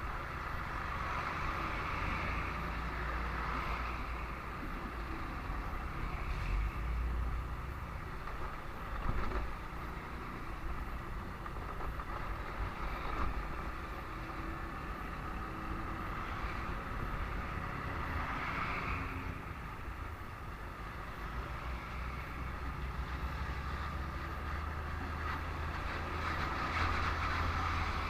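Traffic noise heard from a moving motorcycle: a steady low rumble with engine and road noise that swells and fades every few seconds.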